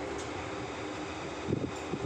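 Steady background noise, with a couple of short, low knocks about one and a half seconds in.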